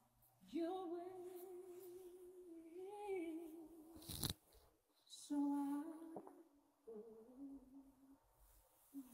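A voice humming a slow tune without instruments, in long held notes, the first lasting about three seconds; a sharp click sounds about four seconds in.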